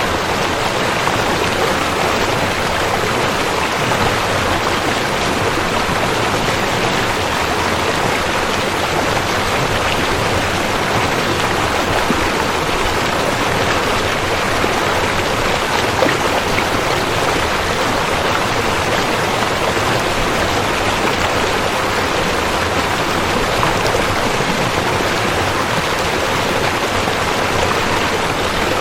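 River water flowing and splashing over rocks: a steady, continuous rush.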